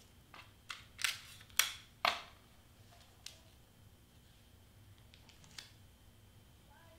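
Black cardstock and tape being handled and pressed together by hand: about five short, crisp crackles in the first two seconds, then a couple of fainter ones.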